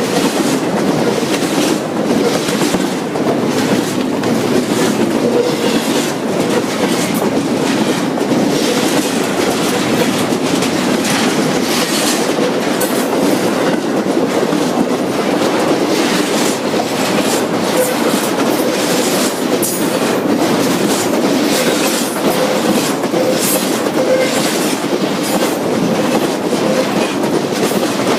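Freight train cars rolling past: a steady rumble with repeated clicks of the wheels over rail joints.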